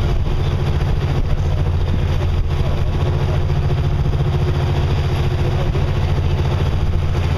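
A small boat's engine running steadily under way, an even low drone with the hiss of water and air over it.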